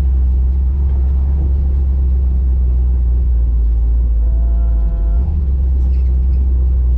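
1967 Chevy Nova's engine, fed by a FiTech throttle-body EFI system, running steadily with a heavy low rumble. A brief higher whine sounds for about a second in the middle.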